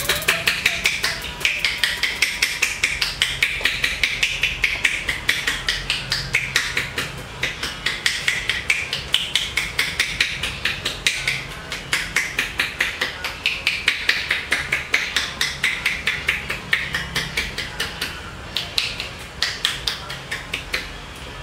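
Rapid, even tapping, about five taps a second, over a faint low hum.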